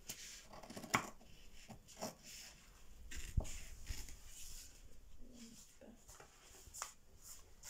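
Scissors cutting through thin bag material, fairly quiet: scattered snips and crinkles.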